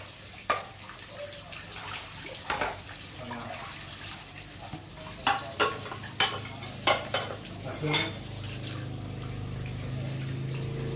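Scattered clinks and knocks of kitchenware being handled, most of them close together between about five and eight seconds in. A steady low hum comes in about eight seconds in.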